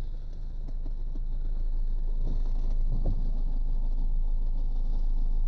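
Car engine running, heard from inside the cabin as a steady low rumble, with a short low knock about three seconds in.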